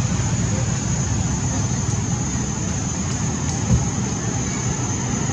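Steady outdoor background noise: a low, fluctuating rumble with a constant high-pitched whine above it, and a brief low thump about two-thirds of the way through.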